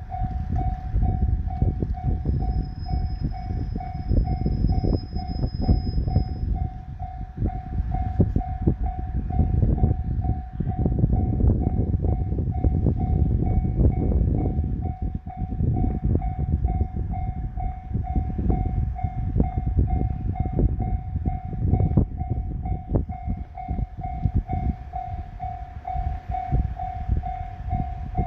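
Japanese level-crossing electronic warning bell ringing in an even, rapid pulse throughout, over the low rumble and many short knocks of the Amagi Railway AR305 diesel railcar passing over the crossing.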